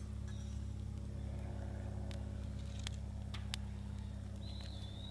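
Small stick campfire crackling, with scattered sharp pops, over a steady low hum. A thin high whistle comes in near the end.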